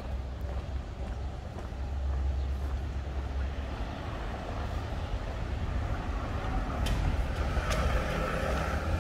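Street traffic ambience: a steady low rumble of motor traffic, growing louder in the last few seconds as a vehicle draws nearer.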